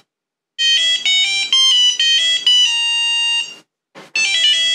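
The NCS314 Nixie clock's piezo buzzer playing an electronic beeping tune of short notes that step up and down in pitch. It breaks off briefly after about three and a half seconds, then starts again.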